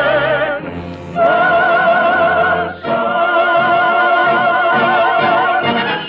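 Operetta singing with orchestra from a 1951 radio broadcast recording: a voice holds long high notes with wide vibrato, moving to a new held note about a second in and again near the three-second mark.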